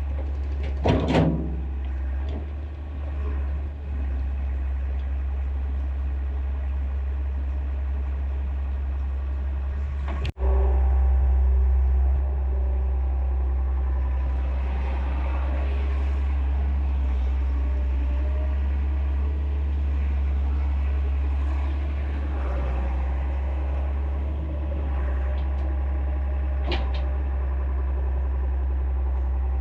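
Excavator's diesel engine running steadily under work. There is a brief louder sound about a second in. The sound cuts out for an instant about ten seconds in and resumes slightly louder.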